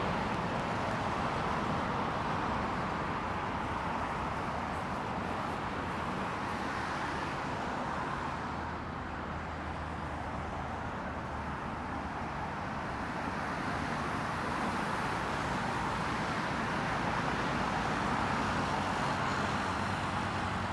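Steady rumble of engine and traffic noise around the airport, with a faint low drone; it eases slightly midway and swells again later on.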